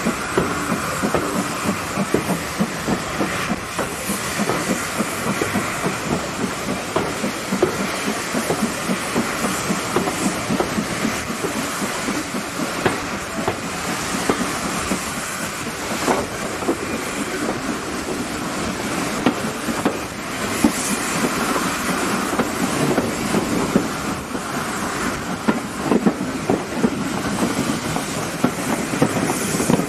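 Steam locomotive at work ahead, its exhaust chuffing and hissing, mixed with the clatter of carriage wheels over rail joints, heard close from an open carriage window.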